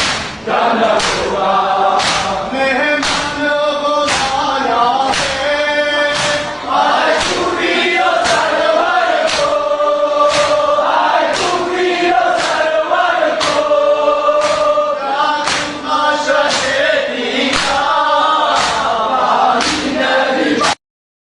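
A group of voices chanting in chorus over a sharp, regular beat struck about every three-quarters of a second. It cuts off abruptly near the end.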